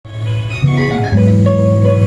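Guitar picking a run of single notes at the start of a song. About a second in, a low note sets in and holds under it.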